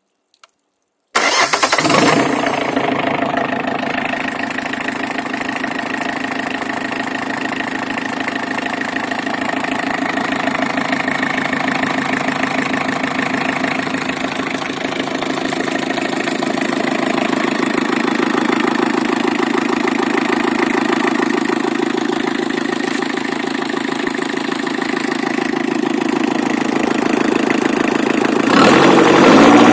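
30 hp Thornycroft T80 marine diesel engine that comes in suddenly about a second in and runs at a steady idle, then revs up near the end.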